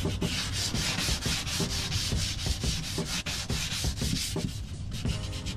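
Sandpaper on a block rubbed by hand in quick back-and-forth strokes along the edge of a replacement window pane, scuffing it so paint and sealant will bond.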